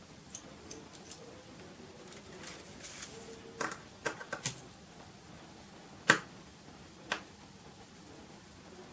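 Light clicks and taps of a small precision screwdriver and repair tools being handled against the phone. There is a quick cluster of sharper clicks about three and a half to four and a half seconds in, and the loudest single click comes about six seconds in.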